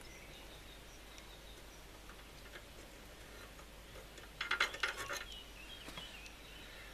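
Small steel parts of a Suffolk door latch clinking and clicking against each other for about a second, around four and a half seconds in, as the loosened latch is handled. The rest is quiet.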